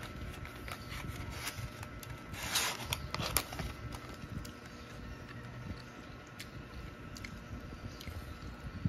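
A cardboard tuna pie sleeve being handled and opened and the fried pie pulled out: paper rustling and scraping with scattered small clicks and crackles, loudest about two and a half to three and a half seconds in.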